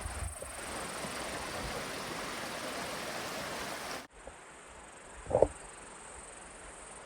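Insects, likely crickets, trilling steadily at a high pitch. For the first four seconds a rustling noise lies over them, then stops abruptly. About a second and a half later comes one short, loud sound.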